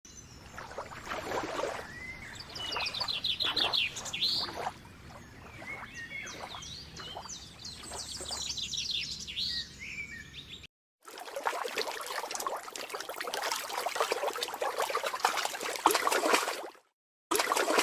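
Birds chirping and trilling, with quick repeated notes and short pitch glides. After a sudden cut about eleven seconds in, water splashes and rushes steadily.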